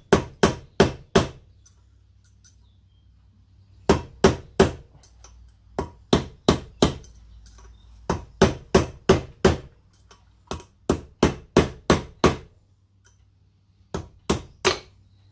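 Copper hammer tapping a punch to drive a wheel bearing race out of a Land Rover Defender hub. The sharp taps come in quick runs of four to seven, about three a second, with short pauses between runs.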